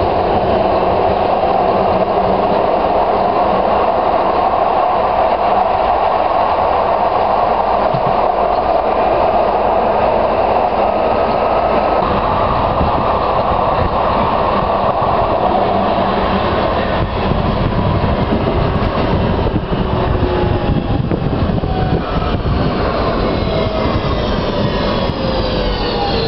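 Manchester Metrolink 2000-series tram heard from the cab, running at speed with a steady rolling and motor noise. About twenty seconds in, several whining tones from its AC traction motors and old-style inverters begin falling in pitch together as the tram slows down.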